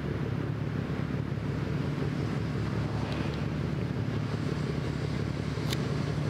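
Steady low engine rumble at an even level, with a short sharp click near the end.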